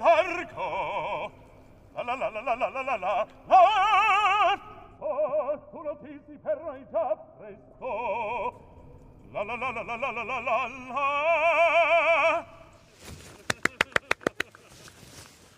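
Operatic singing voice with strong vibrato, sung in several phrases with short breaths between them. Near the end the singing stops and a quick run of sharp clicks follows.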